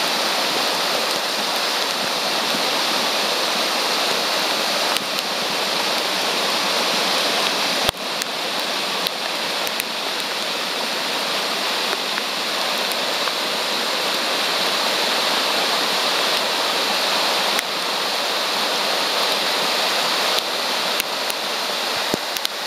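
Steady rush of floodwater running across a road in heavy rain, with a few sharp clicks about a third of the way in and near the end.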